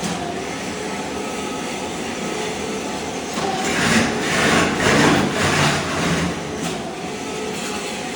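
Ride-on floor scraper running, its blade scraping thin-set mortar off a concrete slab, with the scraping growing louder and harsher from about three and a half to six seconds in.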